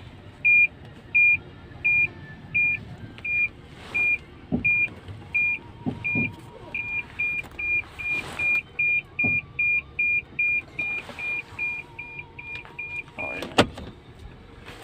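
Toyota Alphard's parking-sensor beeper inside the cabin while the van is being manoeuvred into a space: a single-pitch beep, at first a little more than once a second, then about three times a second from about halfway as the van closes on an obstacle. It stops shortly before the end, followed by a click.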